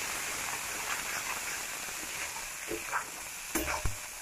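Spice paste sizzling in a metal kadai as a spatula stirs it, the masala being fried down with a little water added. A few short scrapes of the spatula on the pan come in the second half.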